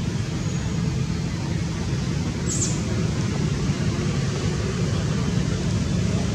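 Steady low rumble of background noise, with a brief high chirp about two and a half seconds in.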